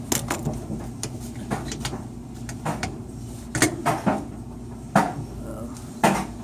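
Irregular sharp clicks and knocks of hard plastic and metal parts being handled at a washing machine's motor coupler, about ten in all, over a steady low hum.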